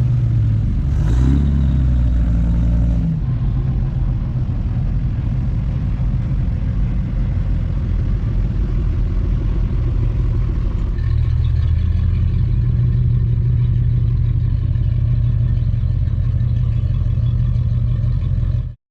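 Muscle car engines rumbling loudly at low revs as the cars drive out of the show. The engine note shifts about three seconds in and again around eleven seconds, then cuts off suddenly near the end.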